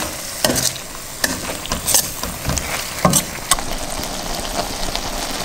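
Shrimp, vegetables and sauce sizzling in a stainless steel wok while a metal spatula stirs them, with several sharp clinks and scrapes of metal on the pan in the first few seconds, then a steady sizzle.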